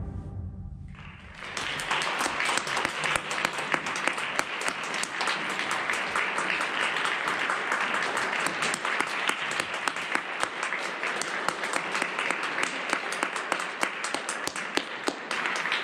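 The band's closing chord rings out and dies away in the hall. About a second in, an audience starts applauding: steady, dense clapping that stops near the end.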